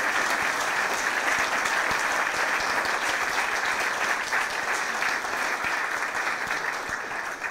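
Audience applauding, a dense steady clapping that tapers off near the end.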